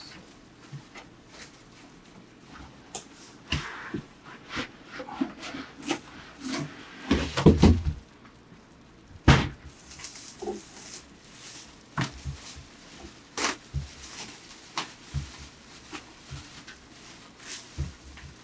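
A PC case being worked out of its cardboard box: scattered knocks, scrapes and rustles of cardboard and packing, with a louder run of bumps about seven seconds in and a sharp knock just after.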